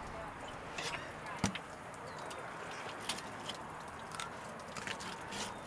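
Yellowtail snapper being filleted with a knife on a cleaning table: scattered sharp clicks and taps, the loudest about one and a half seconds in, over steady background noise.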